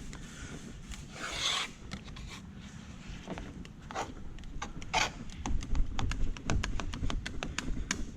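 Handling noises: scattered clicks, taps and rubbing, with a short hissy rustle about a second and a half in.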